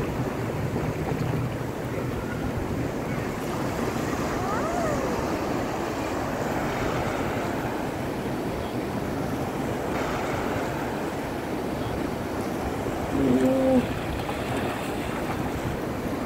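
Ocean surf breaking and washing up onto a sandy beach, a steady rush of water, with wind buffeting the microphone.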